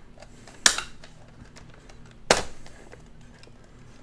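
Two sharp plastic clicks, about a second and a half apart, as a folding Polaroid SLR 680 instant camera is unfolded and its body snaps open into position.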